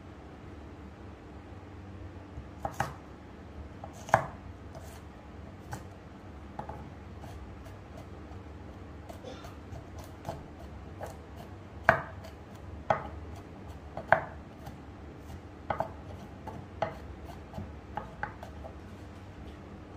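Chef's knife chopping garlic cloves on a wooden cutting board: irregular knocks of the blade on the board, with a few louder strikes among many light ones.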